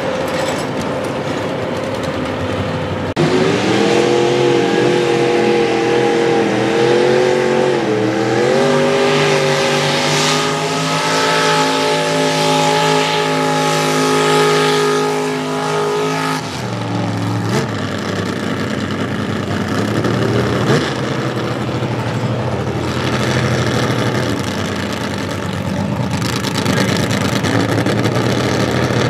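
Mini rod pulling tractor's engine at full throttle, pulling the sled: the revs waver for a few seconds, then hold high and climb slowly. A little past halfway the throttle comes off with a sudden drop in pitch, and the engine runs on at lower revs.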